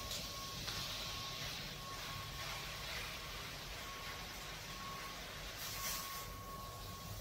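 Noodles and greens sizzling in a wok on a small wood-fired camp stove as they are stirred, with a steady hiss and low rumble from the fire. A thin high whine drops in and out, and the sizzle flares up briefly near the start, about three seconds in and near the end.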